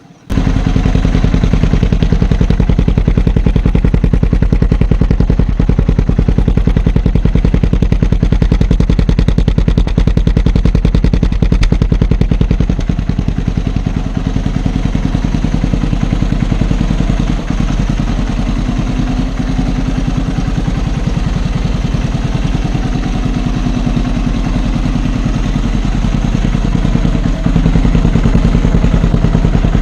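Motorcycle engine idling steadily through a Yoshimura Trioval aftermarket exhaust, loud and even, with no revving. It comes in suddenly at the start, and gets a little louder near the end.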